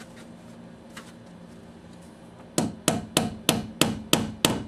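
Claw hammer driving a preset nail through a crown-molding corner block into the wall. After a couple of seconds of faint handling clicks, it starts a steady run of sharp strikes, about three a second.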